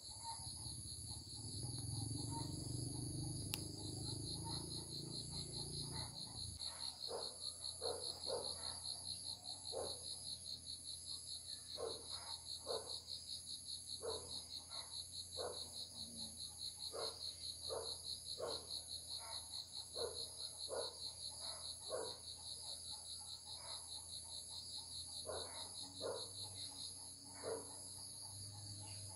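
Insects trilling steadily at a high pitch, with a low rumble for the first few seconds and, from about seven seconds in, short sharp sounds repeating irregularly one or two times a second.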